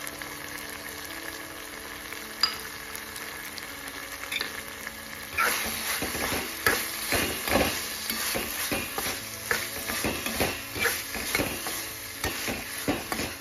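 Metal spatula stirring and scraping pumpkin curry in a kadhai, at about two strokes a second, over a low sizzle. The stirring starts about five seconds in.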